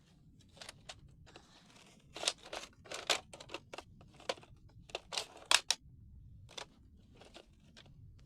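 Irregular sharp plastic clicks and clacks with short rustling scrapes as an X-Shot toy foam-dart blaster is handled and worked at, the blaster jamming and not loading.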